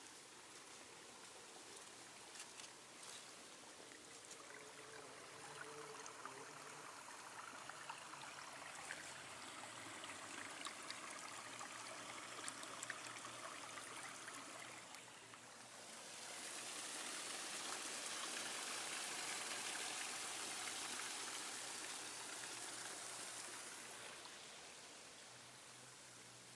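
Small stream of water running through a brick channel and culvert pipe: a steady splashing hiss that swells about halfway through, stays at its loudest for several seconds, then fades.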